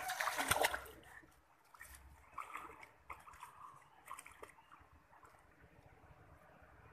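River water splashing and sloshing around a swimmer diving under and resurfacing. The splashing is loudest in the first second, then comes as smaller, scattered splashes and laps that die away.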